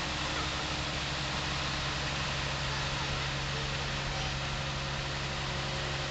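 Diesel cog-railway locomotive idling at a standstill: a steady, even engine hum.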